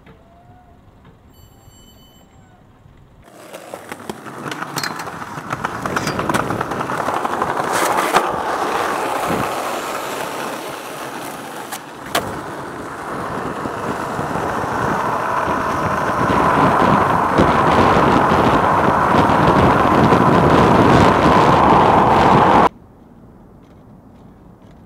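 Skateboard wheels rolling hard on asphalt, a loud grinding rush that starts about three seconds in and builds. There are a couple of sharp clacks of the board about halfway through, and the sound cuts off abruptly near the end.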